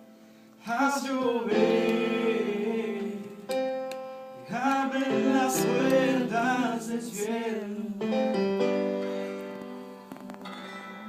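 Worship song played live on keyboard piano chords, with wordless singing sliding in pitch about a second in and again around five to seven seconds in, then held keyboard chords near the end.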